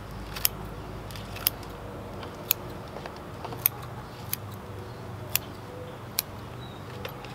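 Bonsai scissors snipping sedum stems while pruning the ground cover back short: about seven sharp snips, roughly one a second, over a low steady hum in the background.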